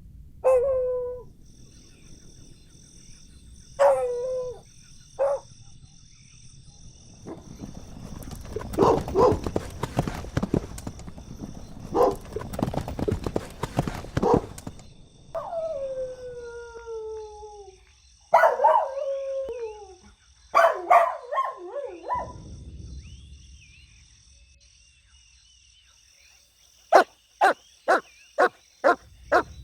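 Golden retriever puppies whining and yelping in short cries that fall in pitch, with a stretch of scuffling, rustling noise in the middle as they play. Near the end comes a quick run of about six sharp yips.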